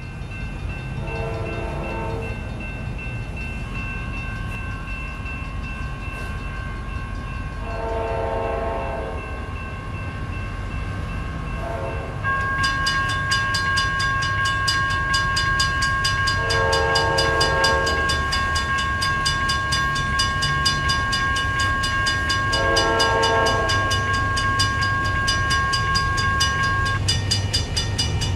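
Locomotive horn of an approaching train sounding four long blasts and one short one, several seconds apart, over a low rumble. About twelve seconds in, the grade-crossing warning bell starts ringing rapidly and keeps going.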